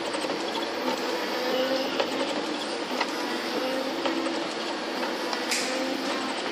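Bras two-bowl granita machine running: a steady mechanical whirr with faint regular ticks about once a second as its augers turn.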